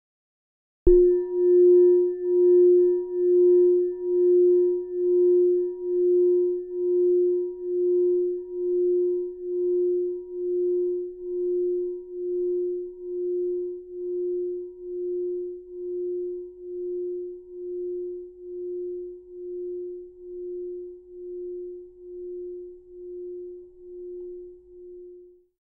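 A single bell-like tone, struck once about a second in. It rings on with a slow pulsing wobble, a little faster than once a second, and fades gradually over more than twenty seconds until it dies away near the end.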